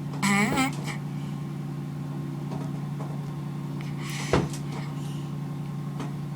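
Male leopard tortoise making its mating calls while mounting: a short call with a wavering pitch just after the start, and a second, rougher call about four seconds in that ends in a sharp knock. A steady low hum runs underneath.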